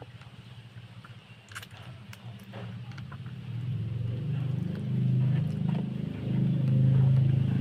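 A motor vehicle's engine running with a low hum, growing louder about halfway through as it comes close. A few faint clicks come before it.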